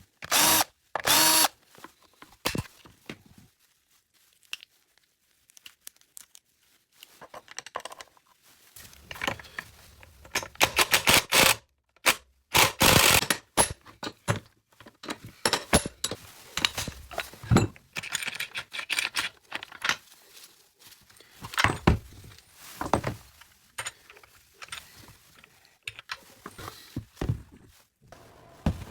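Short bursts of a small power tool such as a drill or power driver whirring, scattered among clicks and knocks of tools and parts being handled.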